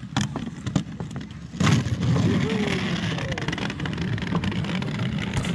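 Small plastic wheels of a toy doll stroller rolling over wooden decking boards: a few clicks at first, then a steady rumbling clatter from about one and a half seconds in.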